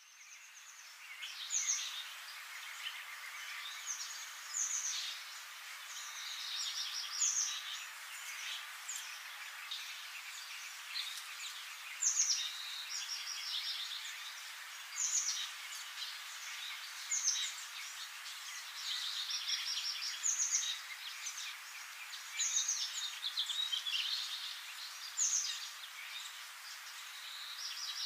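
Birdsong: many small birds chirping and trilling, with short falling whistles, over a steady hiss. It fades in at the start.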